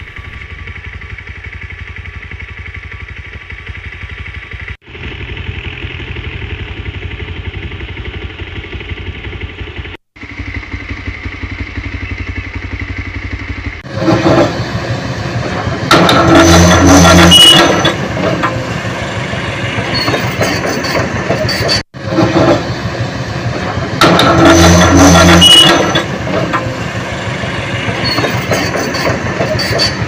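A steady, quieter engine-like rumble, broken by two abrupt cuts, gives way about halfway through to a Kobelco hydraulic excavator's diesel engine running loudly. The engine surges twice under hydraulic load, each time for a second or two.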